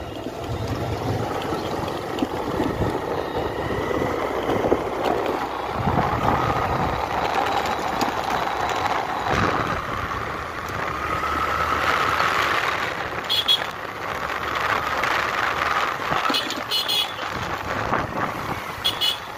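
Motorcycle riding along a road, its engine and road noise running throughout. In the second half, a few short toots of vehicle horns come from the surrounding traffic.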